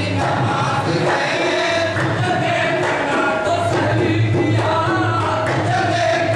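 Qawwali singing: several voices singing a devotional kalam together over a steady low drone, with repeated percussion strikes keeping time.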